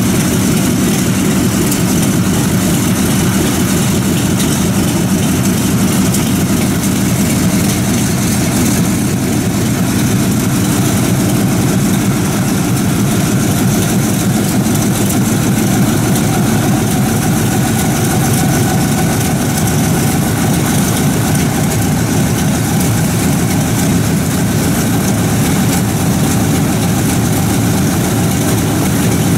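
Republic P-47D Thunderbolt's Pratt & Whitney R-2800 Double Wasp 18-cylinder radial engine idling steadily on the ground, propeller turning.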